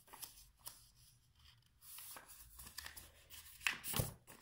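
A sheet of printer paper handled and folded by hand: faint scattered rustles and crinkles of the paper, with a louder burst of paper handling near the end.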